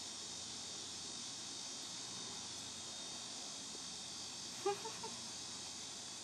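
Quiet, steady high-pitched hiss, with a brief faint voice about four and a half seconds in.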